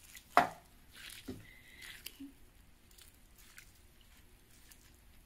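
Broth poured from a cup onto dry stuffing mix in a crock pot, soaking in with faint soft squishing, with a brief sharp knock about half a second in and a smaller one a second later.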